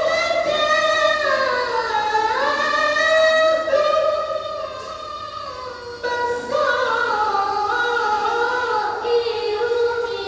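A child's voice reciting the Quran in melodic tilawah style, holding long ornamented notes whose pitch glides up and down. The voice drops quieter about five seconds in, then returns strongly.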